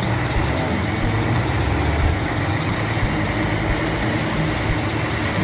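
Truck diesel engine idling steadily while its compressor charges the air system, after the air dryer valve and air production modulator have been repaired; the charging is normal.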